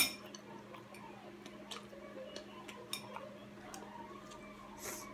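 Chopsticks clinking sharply against a ceramic plate at the start, then light scattered taps and ticks as they pick at noodles, over a steady low hum. A brief soft rustle comes near the end.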